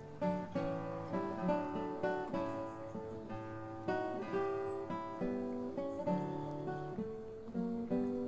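Background music of a picked acoustic guitar: a run of notes and chords, each struck sharply and left to ring.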